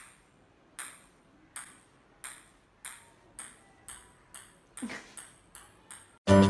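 A series of about a dozen sharp, light pings or clicks, each with a short ringing tail, coming a little faster as they go. Loud music starts just before the end.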